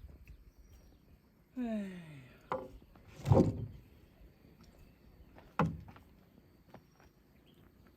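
Wooden planks being put down and knocking against each other: a few sharp wooden knocks, the loudest about three seconds in. Shortly before the knocks, a person's voice gives a drawn-out falling call.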